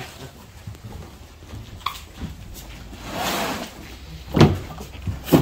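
Cardboard boxes being handled while a lorry is unloaded by hand: a scraping, rustling noise about three seconds in, then two sharp knocks near the end.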